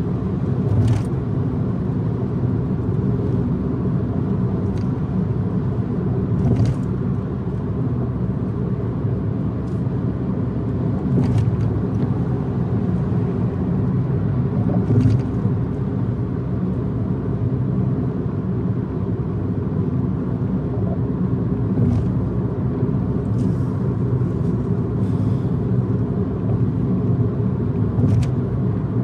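Steady low rumble of a car driving at speed on an expressway, tyre and engine noise, with a few brief faint clicks.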